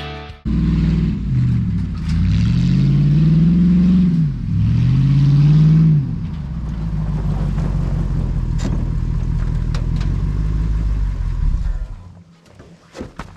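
Old truck's engine revved twice, its pitch climbing and falling each time, then settling into a steady idle that drops away near the end.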